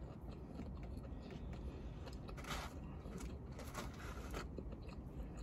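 Faint chewing of a fast-food burger: a few soft mouth smacks and clicks, the clearest about two and a half seconds in, over a low steady hum.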